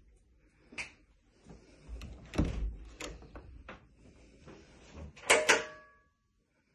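An interior door being handled as someone walks through: latch clicks and knocks, a dull thump, then a louder clatter near the end with a short metallic ring.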